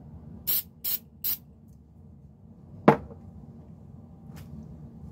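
Aerosol can of contact cleaner sprayed onto a cotton swab in three short hissing spurts, each under a quarter second and about half a second apart. A single sharp knock follows about three seconds in.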